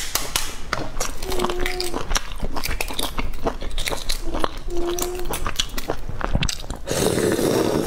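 Boiled eggshells being cracked and peeled by hand: a dense run of small sharp crackles and clicks as the shell breaks and comes away. A louder rushing noise comes in near the end.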